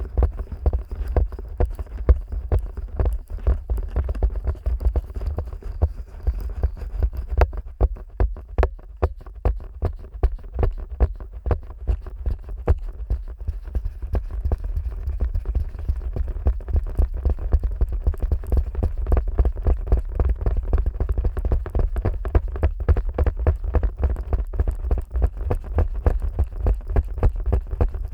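Fingers working directly on the silicone ears of a 3Dio binaural microphone, making a dense run of quick, closely spaced taps and rubs with a heavy low thump under each.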